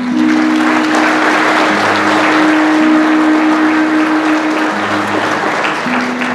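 Audience applause that breaks out suddenly and thins toward the end, over an acoustic guitar playing slow, held notes.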